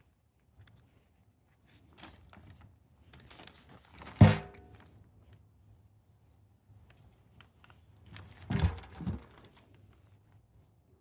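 Hand-handling noises from small objects being moved, with a sharp metallic clunk and a brief ring about four seconds in, then two duller knocks close together near the end, among small clicks and rustles.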